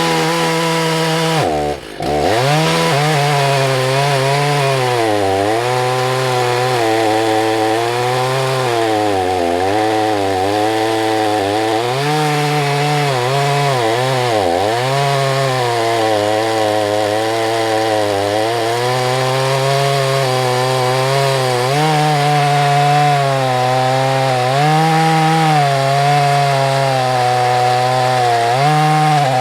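Husqvarna 181SE two-stroke chainsaw at high revs cutting into a large beech log, its engine pitch sagging and recovering again and again under load. It dips sharply and briefly about two seconds in. The owner thinks its chain is probably not the best.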